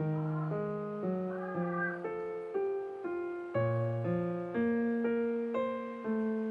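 Background piano music, a slow run of held notes, with a cat meowing faintly over it twice: near the start and again about a second and a half in.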